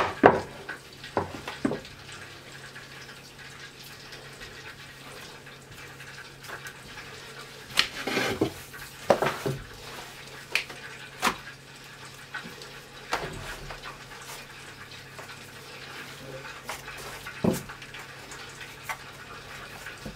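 Scattered soft knocks, taps and rustles of a thin sheet of baklava dough being gathered onto a rolling pin, laid over a metal baking tray and pressed down by hand, over a low steady hum. The loudest knocks fall at the very start and about eight seconds in.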